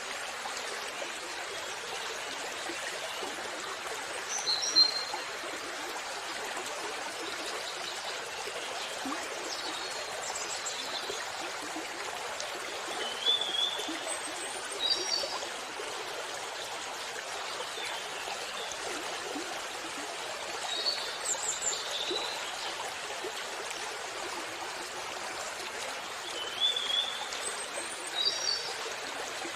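Waterfall's steady rush of falling water, with short bird chirps breaking in every few seconds.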